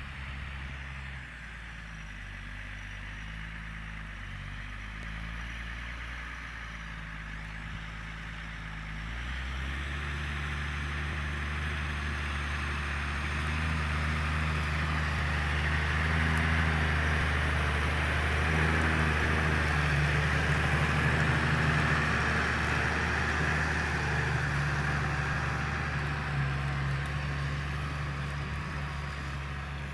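Deutz-Fahr Agrotron 6.45 S tractor engine running steadily under load while pulling a plough. The engine note shifts about ten seconds in, and the sound grows louder toward a peak about two-thirds of the way through, then eases off.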